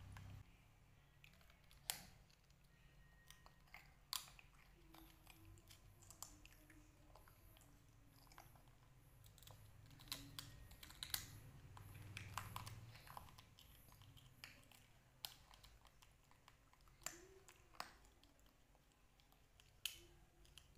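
Faint mouth clicks and smacks at irregular intervals, every second or two: a toddler and a baby monkey chewing dried banana.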